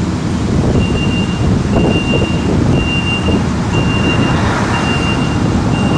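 Warning beeps from a CAF H3 light rail vehicle standing at a station: a single high tone repeating about once a second, each beep lasting well over half a second, starting about a second in. It is typical of a door-closing warning before departure. Underneath runs a steady low rumble.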